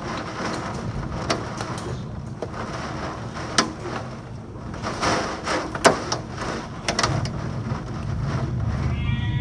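Heavy thunderstorm downpour rushing steadily, with scattered sharp clicks and knocks. Near the end a short high wavering cry begins.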